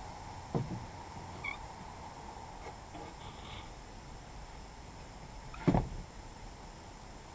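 Two knocks as a straight edge is set and handled on a white board panel, a light one about half a second in and a sharper, louder one near six seconds, with a few faint squeaks in between over a low steady hum.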